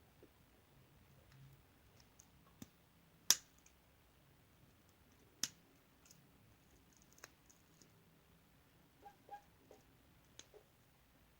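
Scissors snipping in short, sharp clicks, with two louder snips about three and five seconds in and a few small ones near the end.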